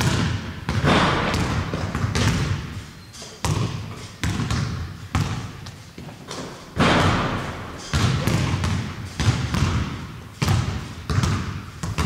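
A series of heavy thumps at uneven intervals, about one a second, each dying away quickly.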